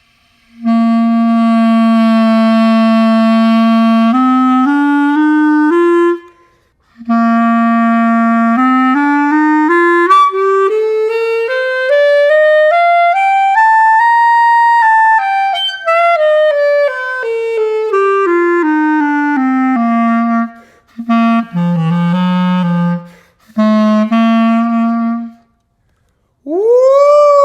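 A cheap plastic clarinet played straight out of the box: a long held low note, a few stepped notes, then a long scale run that rises and falls back down, more notes, and near the end a note that bends sharply up and down. Its tone is squeaky and weird because the reed sits too low on the mouthpiece and is not sealing.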